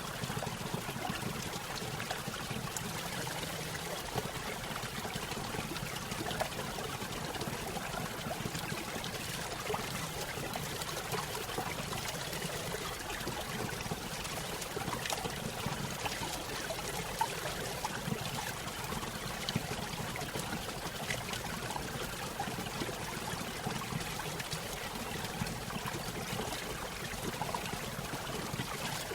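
Small stream spilling over a little waterfall: water trickling and splashing steadily, with small droplet ticks scattered through it.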